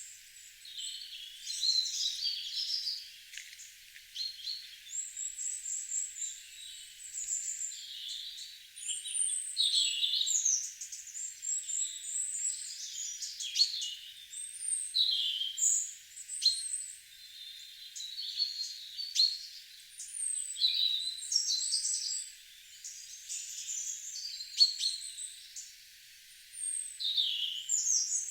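Several songbirds singing in a garden, a steady overlapping stream of short chirps, trills and whistled phrases.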